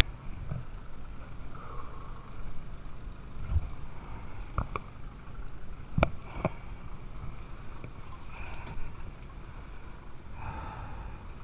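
Trash pump's small engine running steadily, heard as a muffled low rumble while it draws water out of the flooded cabin through its suction hose. A few sharp knocks sound about halfway through.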